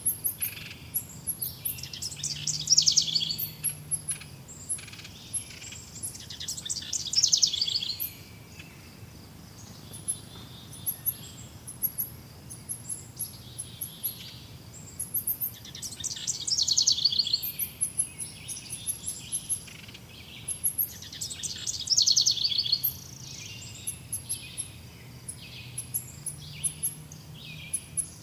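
Wild songbirds singing: short high chirps throughout, with a louder rapid trilled phrase every few seconds.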